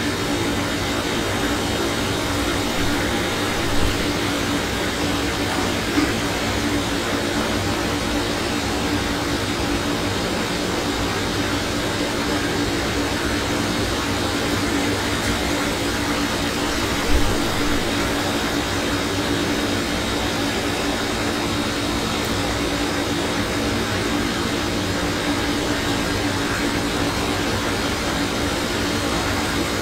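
Steady hum and hiss of background room noise, with three soft knocks: about four seconds in, at six seconds, and just past seventeen seconds.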